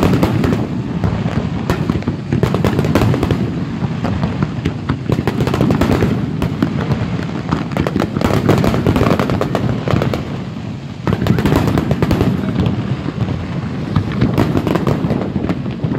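Fireworks display going off in a dense, continuous barrage of crackles and bangs over a low rumble, easing briefly about eleven seconds in.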